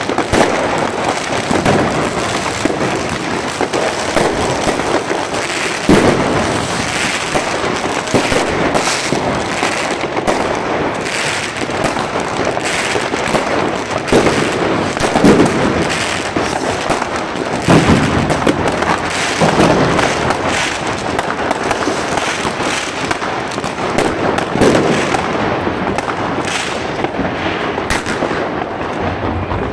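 Fireworks and firecrackers going off all around: a dense, continuous crackle and popping, with a louder bang standing out every few seconds.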